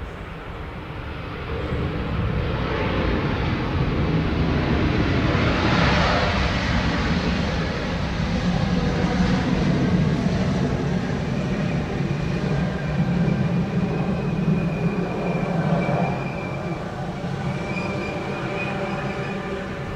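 British Airways Embraer E190's twin GE CF34 turbofans as the jet lands and rolls out along the runway: a roar that swells about two seconds in and holds steady, with a high whine joining around twelve seconds in.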